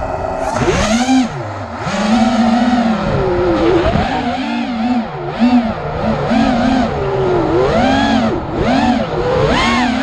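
Racing miniquad's motors and propellers whining, the pitch swinging rapidly up and down as the throttle is punched and eased through the course.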